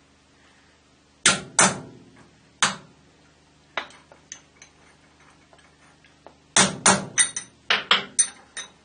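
Hammer tapping a steel pin punch to knock a stuck brass gib-lock pad out of a lathe slide from the back. There are four sharp metallic taps spread out at first, then a quicker run of about eight taps near the end.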